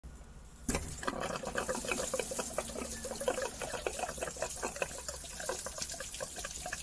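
A knock about a second in, then coolant trickling and splashing out of the engine in a dense, uneven patter as the thermostat housing is worked loose. The thermostat is stuck shut and has caused the engine to overheat.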